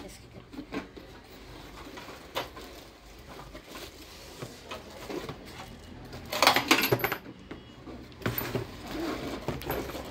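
Toy coin-bank almirahs being unpacked from cardboard boxes and plastic wrapping: scattered light clicks, clinks and knocks of box flaps and the toys, with a loud burst of plastic crinkling about six seconds in.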